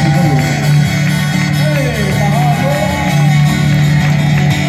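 Live Hawaiian music from an acoustic trio: acoustic guitars playing over a steady bass line, with a voice singing a gliding melody.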